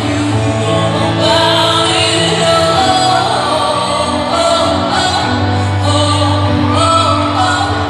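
Music with singing voices holding long notes, over a steady low bass note that drops out in the middle and returns.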